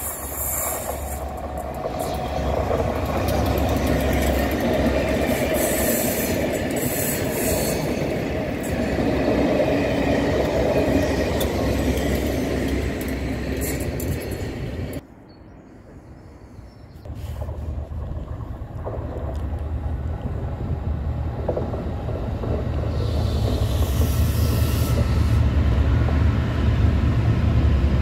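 Class 67 diesel locomotives with a test train running past. After a sudden drop to a brief quieter stretch about halfway, a pair of Class 68 diesel locomotives (Caterpillar V16 engines) draw near with a steady low engine drone that grows louder as they pass.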